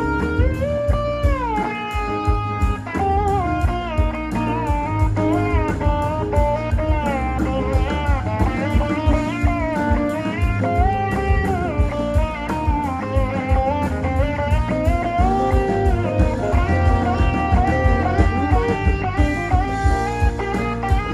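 Blues-rock band music: a lead electric guitar line with notes sliding up and down over bass and a steady drum beat.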